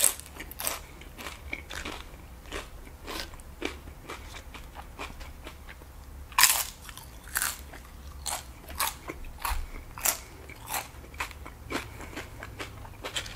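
Close-miked crunching of cheese-sauced tortilla chips being bitten and chewed: a loud crunch at the very start, a fresh bite about six and a half seconds in, and irregular crunching chews between and after.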